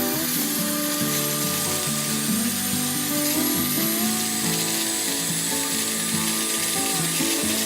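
Background instrumental music, its notes changing pitch every second or so, over a steady hiss.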